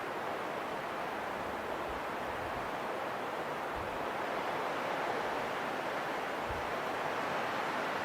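Steady rushing wind, growing a little louder around the middle.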